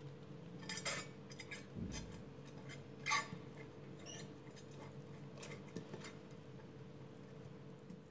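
Silicone pastry brush spreading oil over a glass baking dish: scattered light clicks and taps of the brush against the glass, with a sharper knock about three seconds in and a low thump just before it.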